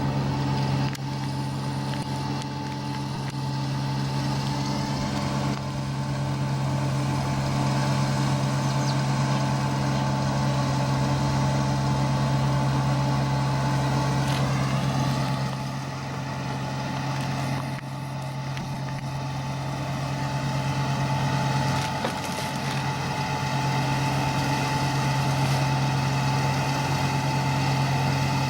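ISEKI 325 rice harvester running steadily while harvesting: a constant engine hum with a high whine and a rattling mechanical wash over it.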